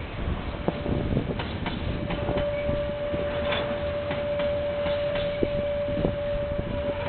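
Container freight train rolling past, its wagons rumbling with scattered knocks from the wheels. About two seconds in a steady single-pitched squeal, typical of wagon wheels squealing against the rail, rises and holds.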